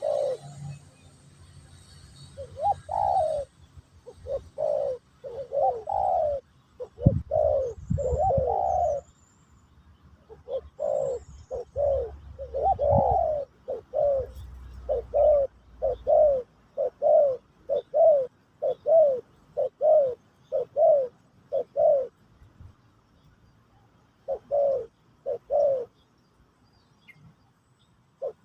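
Spotted dove (terkukur) cooing: a long series of short coos, roughly one a second, in runs broken by brief pauses. Low rumbles and a few thumps sound under the coos in the first half.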